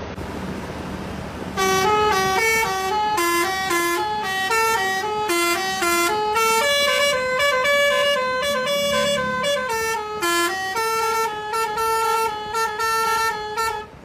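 Bus telolet horn: a multi-tone air horn playing a melody of short stepping notes, starting about a second and a half in, over a low rumble.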